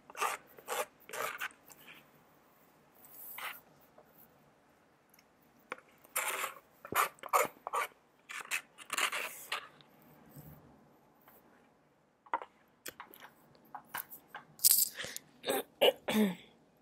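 Close-up eating sounds: soup sipped from a takeout bowl and eaten with a plastic spoon, with chewing, coming in short irregular bursts with quiet gaps between. A brief throat sound comes near the end.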